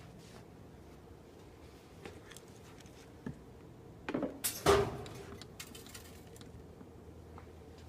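A few sharp knocks and a short clatter about four to five seconds in, with scattered light clicks over a faint steady low hum.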